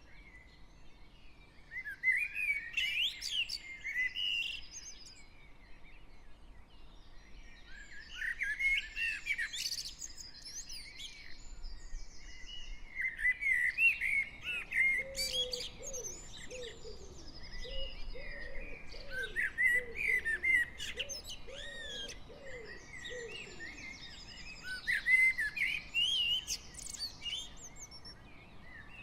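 Dawn chorus of garden songbirds. One bird sings a rich phrase of about two to three seconds every five or six seconds, over fainter high calls from other birds. From about the middle, a lower series of repeated arched notes joins in for several seconds, and a faint distant traffic hum sits underneath.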